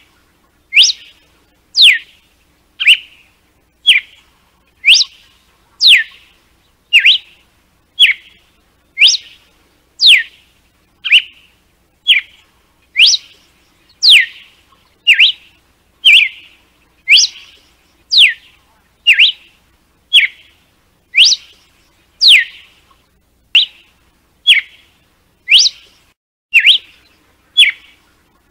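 Red-cowled cardinal (galo-de-campina) singing its 'açoite' (whip) song: loud, short whistled notes at about one a second, sharp sweeping whip notes alternating with shorter, lower chirps.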